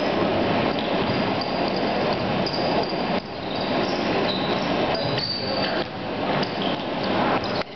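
Basketball being played on a hardwood gym floor: many short, high sneaker squeaks and a few ball bounces over a steady, echoing gym din.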